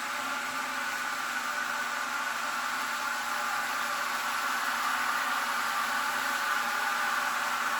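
Sound decoder of an N-scale Rapido Amtrak RTL Turboliner model in electric third-rail mode: a steady, hissy whir played through the model's small speaker, with the running of its drive on the track. It grows slightly louder toward the end.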